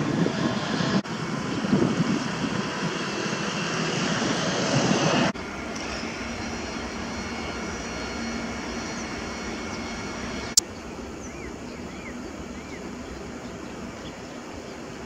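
A loud, steady rushing noise, like passing aircraft or traffic, cuts off suddenly about five seconds in. A quieter outdoor background follows. A sharp click comes about ten seconds in, and soon after it three short bird call notes, each rising and falling.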